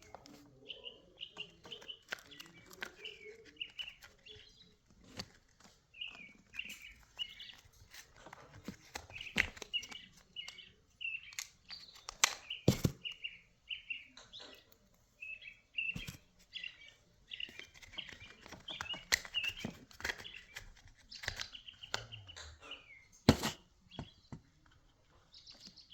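A small bird chirping over and over in quick clusters of high chirps. Scattered sharp clicks and knocks from small tools and parts being handled come through, with two louder ones around the middle and near the end.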